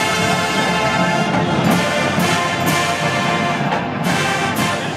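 College marching band playing: massed brass sustaining chords over percussion, with several sharp percussion hits along the way.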